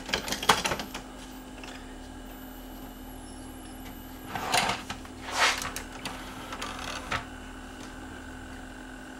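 Plastic CD player parts being handled and fitted by hand: a quick run of clicks at the start, two sliding, scraping sounds around the middle and a single click later, over a steady low hum.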